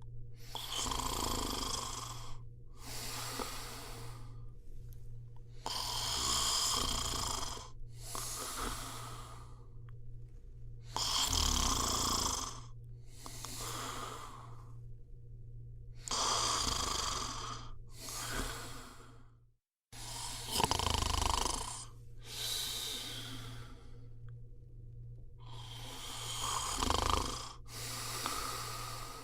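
A person snoring in slow, regular breaths, about six in all, each breath heard in two noisy parts back to back. A steady low hum runs underneath, and the sound drops out for a moment about two-thirds of the way through.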